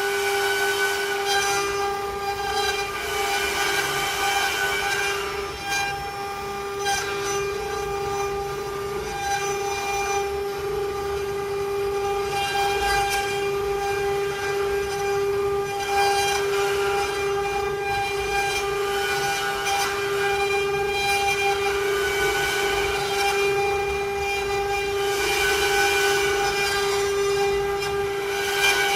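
CNC wood-carving router's spindle running with a steady high whine, with a hiss of cutting that swells and fades as it carves.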